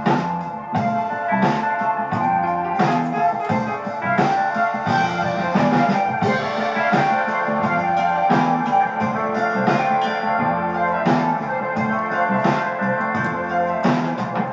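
Music with keyboard and a steady beat, played back through a 0.7-watt 71A single-ended tube amplifier.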